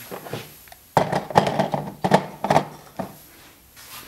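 Clattering and knocking of hard objects, a quick irregular run of knocks and rattles, busiest from about one to three seconds in.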